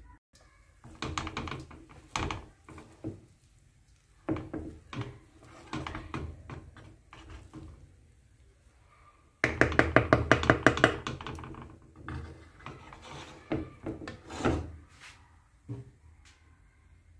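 Wooden spatula stirring and scraping cooked rice with peas around a pan, in bursts of knocking and scraping strokes. A fast run of strokes a little past halfway is the loudest.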